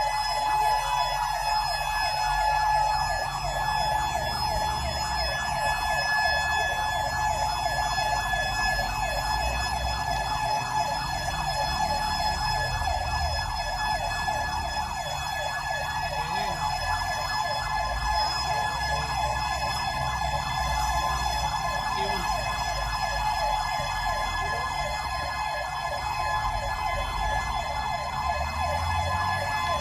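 Emergency response vehicle's electronic siren sounding a rapid yelp, its pitch sweeping up and down in quick even cycles over a steady high tone, with the vehicle's engine rumbling underneath.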